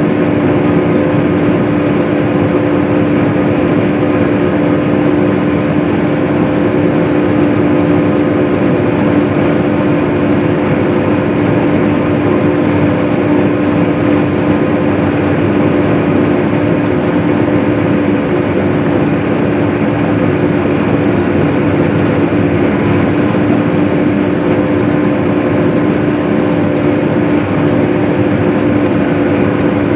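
Case IH swather running steadily while cutting hay: a constant, unchanging engine drone with a steady hum.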